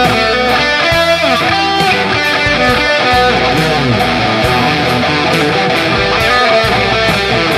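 Rock music: electric guitar playing sliding notes over bass and a steady drum beat.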